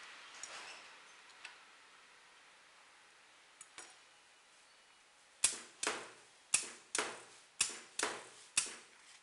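Pneumatic valves and cylinders on the glue-dispensing head of a glue trap board making machine clicking as they are worked: a few faint ticks, then about halfway through seven sharp snaps in quick pairs, each dying away quickly.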